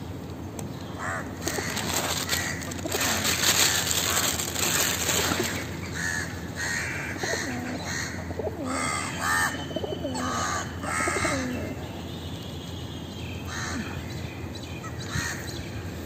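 Crows cawing, a run of repeated harsh caws between about six and twelve seconds in and a few fainter ones later. Earlier, a few seconds of crinkly rustling from the plastic bag of rice are the loudest sound.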